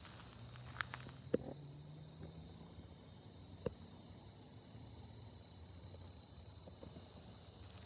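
Faint outdoor background with a thin steady high tone, a low hum in the first few seconds, and three short sharp clicks in the first four seconds.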